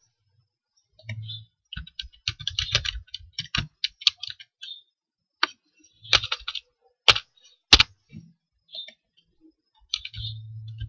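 Computer keyboard typing in quick runs of keystrokes, with a few single sharp clicks between the runs.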